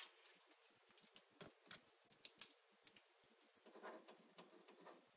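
Faint, scattered scratches and clicks of someone writing on paper.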